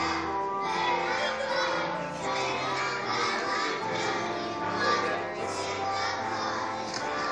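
A class of schoolchildren singing a song together as a choir, holding sustained notes in a steady melody with musical accompaniment.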